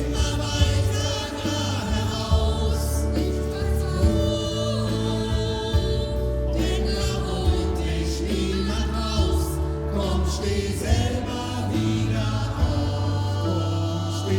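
Choir singing in harmony, the voices moving over sustained low notes.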